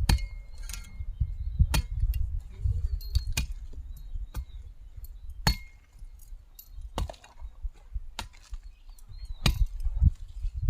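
A garden hoe chopping into soil during weeding, in irregular strokes every second or two. Each stroke is a sharp chop, some with a faint metallic clink, over a low rumble.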